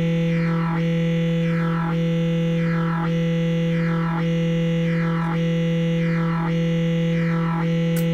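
Analog modular synthesizer voice holding a steady low note, its bright upper tone gated by a clock about once a second. Each gate stays open for most of the cycle with only a short break between, a very long duty cycle.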